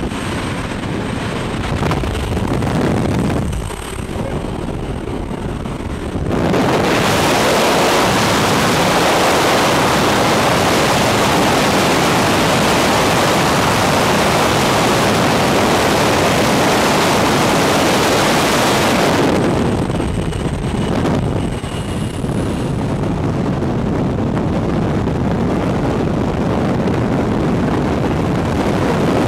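Steady engine and propeller drone with wind noise inside a jump plane's cabin. About six seconds in, a much louder rush of wind and engine takes over by the open door. After about nineteen seconds it eases into the steady rush of freefall air on the microphone.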